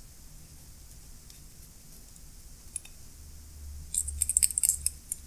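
A wooden toothpick scraping and clicking against the metal inside a Snap-on ratchet head as grease is worked in behind the pawl. It is faint at first, then about four seconds in there is a quick run of small, sharp clicks lasting about a second.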